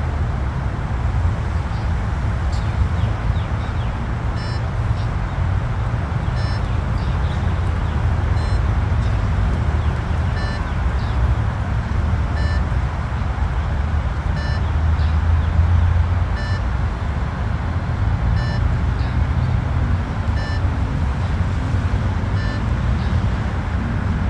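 Short electronic beeps, one every two seconds, from a beep-test timer pacing pull-up reps, starting a few seconds in. A loud steady low rumble runs underneath.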